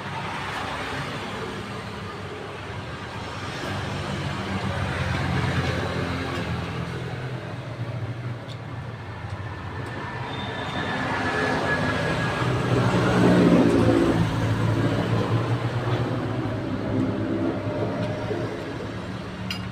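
Road traffic going by: motor vehicle engines and tyres, swelling as vehicles pass about five seconds in and again, loudest, around thirteen seconds in.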